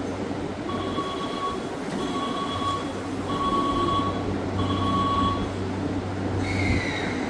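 Door-closing warning tone at a railway platform: four evenly spaced beeps of one pitch, each just under a second long, over the steady hum of a stopped electric train. Near the end comes a short hiss of air with a falling whistle, the train's brakes being released before departure.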